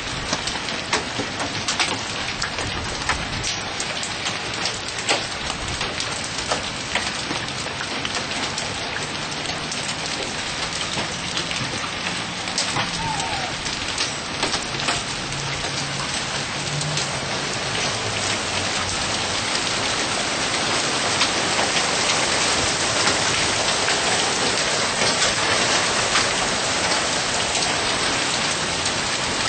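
Hail and heavy rain pelting down onto the ground, cars and the wooden balcony railing, a steady downpour dotted with many sharp clicks of stones striking. It gets heavier in the last third.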